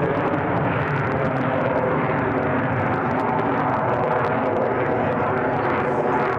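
Jet aircraft engine noise, steady and loud.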